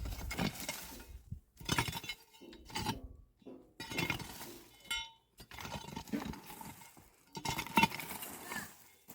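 Intermittent clinking and clattering of hard objects, like dishes or glassware being handled, in a string of separate knocks about once a second.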